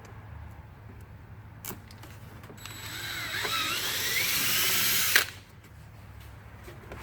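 Power drill with a 3/16-inch bit drilling a rivet hole through a composite side rocker panel, running for about two and a half seconds from a little over a third of the way in, its pitch wavering under load, then stopping abruptly with a sharp click.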